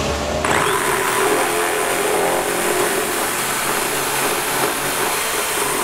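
Hand-held electric drill running steadily as it bores into a plastic mannequin torso, starting about half a second in.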